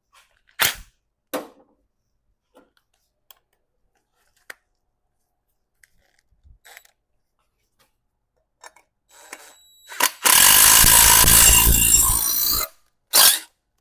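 A few light metallic clicks and taps, then a power tool runs for about two seconds near the end, driving a new bolt in and cutting fresh threads in the bolt hole.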